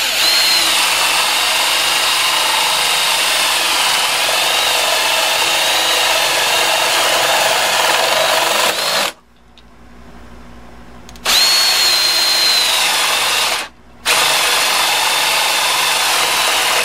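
Ryobi cordless drill boring 1-inch holes through a wooden board with a spade bit, a high motor whine that dips in pitch over the noise of the bit cutting. It stops for about two seconds about nine seconds in, starts again, pauses briefly near fourteen seconds, then runs on.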